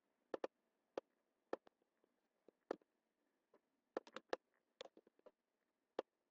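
Computer mouse buttons clicking: about a dozen short, sharp clicks at irregular times, with a quick run of several about four seconds in.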